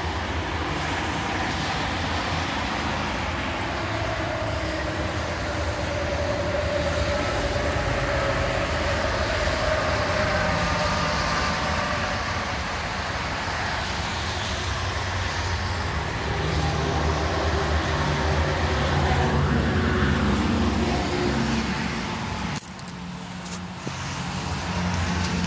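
Steady highway traffic noise, vehicles passing in a continuous rumble, briefly quieter near the end.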